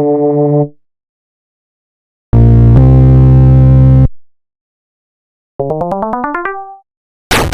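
A string of short synthesized musical sound-effect stingers with silences between: a held note that fades out, then a loud, low held chord lasting about two seconds, then a quick rising run of notes, and another cue starting at the very end.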